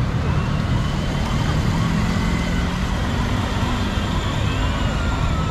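Thin electronic siren-like tones, wavering slightly in pitch, from children's battery-powered ride-on toy cars, over a steady din of the busy ride-on car lot.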